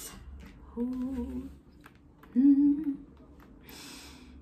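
A woman humming two short, wavering closed-mouth "mmm" sounds, the second louder, followed near the end by a brief breathy hiss.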